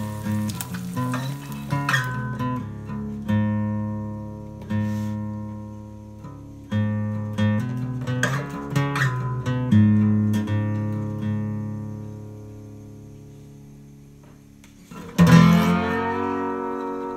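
Acoustic guitar music: picked notes and chords that ring out and fade, ending in a long fade before a hard strummed chord near the end.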